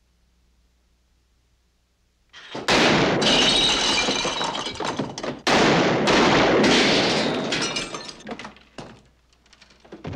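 Two loud revolver shots about three seconds apart, each followed by a long crash of breaking glass that dies away into scattered clinks.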